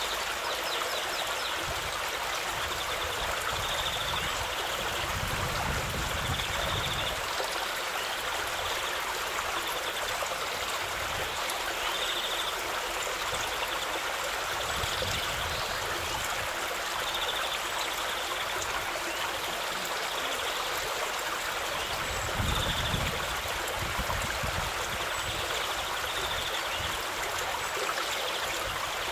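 A shallow river running over stones: a steady rushing of water.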